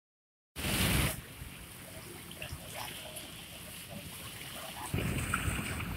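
Seaside ambience: a steady wash with faint water lapping and faint distant voices, after a short loud burst of rushing noise about half a second in. The wash grows louder again about five seconds in.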